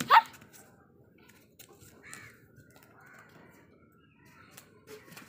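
A girl's short, high shriek right at the start, then quiet with a few faint caws in the background.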